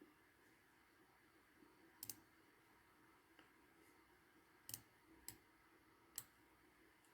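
Computer mouse clicks over near-silent room tone: a double click about two seconds in, another near the middle, then two single clicks.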